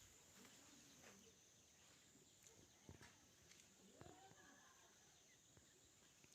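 Near silence, with faint clucking of chickens now and then and a few soft knocks.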